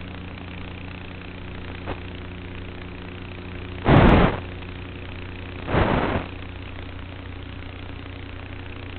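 Steady hum of an E-Flite Apprentice S RC airplane's electric motor and propeller, running at an even pitch. Two short, loud rushes of noise cut across it about four and six seconds in, the first the loudest.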